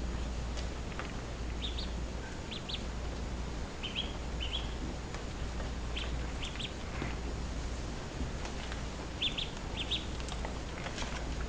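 A duckling peeping: short high-pitched peeps, often two or three in quick succession, repeated every second or two over a low steady hum.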